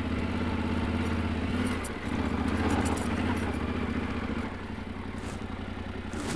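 Yamaha Ténéré 700's parallel-twin engine running at low revs while the bike rolls slowly along a dirt track. Its note drops about two seconds in and gets quieter about halfway through, with a few light clicks along the way.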